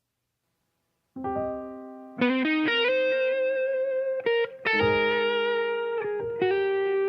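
About a second of silence, then the instrumental intro of the next Pentecostal gospel song begins: held keyboard and guitar chords that change every second or so.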